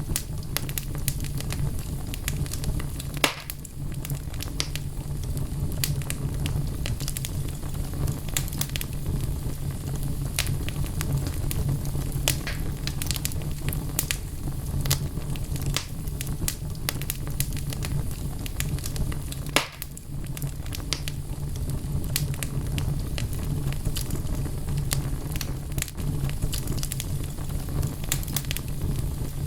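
Wood fire burning in a fireplace: logs crackling with many small snaps over a steady low roar, and two louder pops, one about three seconds in and one about two-thirds of the way through.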